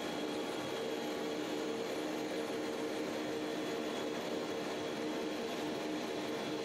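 Steady jet engine and cockpit noise on the flight deck of a KC-135 tanker: an even rush with a couple of constant low hums and a faint high whine.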